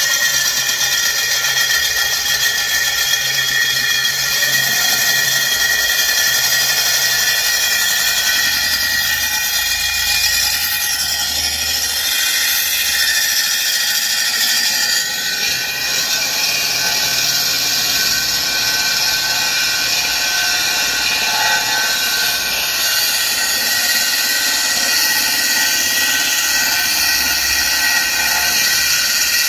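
Parkside PKBM 1800 A1 1800-watt core drill running steadily under load, its core bit grinding dry into a concrete paving slab while held freehand, without a drill stand. A high, many-toned motor whine sits over the rough grinding.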